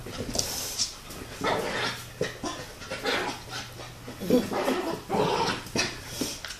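Small dog in hyperactive play, barking and whimpering in short, irregular bursts.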